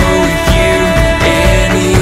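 Dance music with a steady beat and a held melody line.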